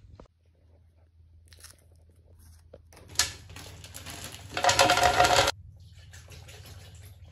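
Frozen blueberries tipped into a plastic blender jug: a sharp knock about three seconds in, then about two seconds of rattling and rustling that stops suddenly.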